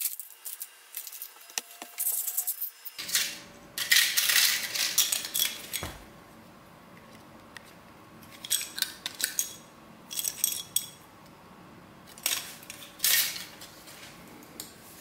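Metallic clinking and clattering of laptop parts being handled and pulled apart, in several short bursts with pauses between.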